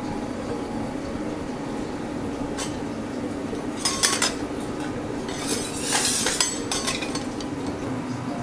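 Clinks and scrapes of plates and metal utensils, loudest about four seconds in and in a cluster around six seconds, over a steady low hum.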